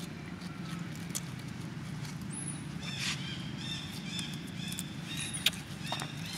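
Short, high-pitched chirping calls repeated in quick runs from about halfway through, with a few sharp clicks, the loudest near the end, over a steady low hum.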